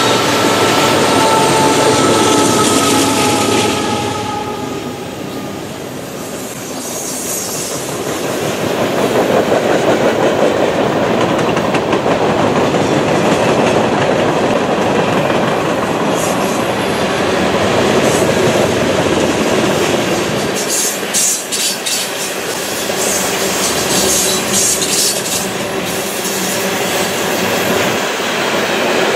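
Freight train cars, covered hoppers and centerbeam flatcars, rolling past close by with a steady rumble and clickety-clack of steel wheels on rail. There is a faint wheel squeal in the first few seconds and a run of sharp metallic clicks about three-quarters of the way through.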